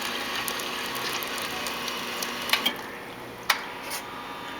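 Super-automatic espresso machine dispensing hot water: a steady hiss and hum from the pump and flowing water, with two sharp clicks a little past halfway.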